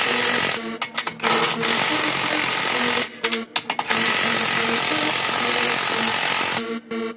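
A power tool running in three runs of harsh, steady noise, stopping briefly about a second in and again about three seconds in, then cutting off near the end. Music plays underneath.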